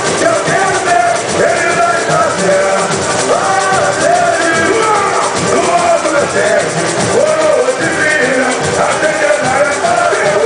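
Live samba school parade music: the samba-enredo sung over the bateria's dense samba drumming and shakers, loud and steady.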